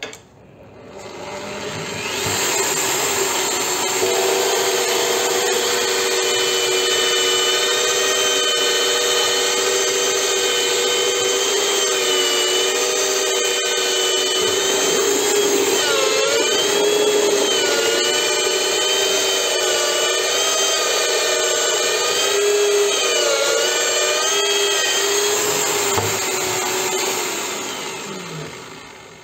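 Bench drill press starting up and running with a steady whine while a step drill bit cuts through 5 mm steel sheet. In the middle the pitch dips and wavers as the bit cuts under load, and near the end the motor winds down.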